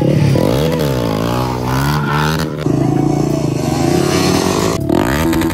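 Motorcycle engine revved repeatedly, its pitch rising and falling several times.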